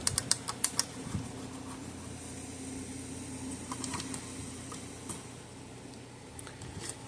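A plastic zip tie being pulled through its lock, a quick even run of ratchet clicks in the first second, followed by a few scattered clicks.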